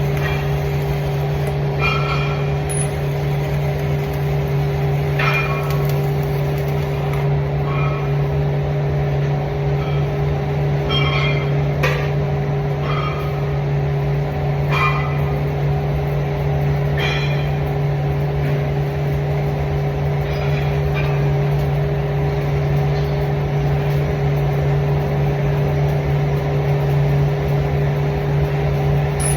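Steady machine hum with a strong low drone and a fixed higher tone, overlaid by about a dozen brief, sharper sounds scattered throughout.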